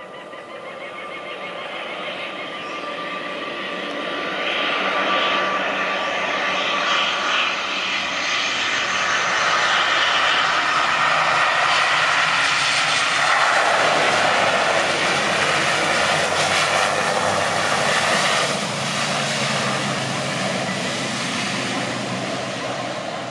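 ATR 72 twin-turboprop airliner landing and passing close by: the whine and drone of its engines and propellers grow steadily louder, peak as it sweeps past a little after halfway with a drop in pitch, then ease off as it rolls on down the runway.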